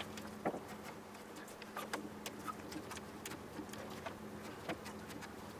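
Faint, irregular small clicks and light taps from hand cleaning work on a moped, over a steady low hum.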